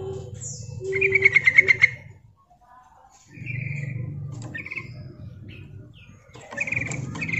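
Yellow-vented bulbul calling: a loud, fast run of about eight bubbly notes about a second in, then shorter chirping phrases in the middle and again near the end.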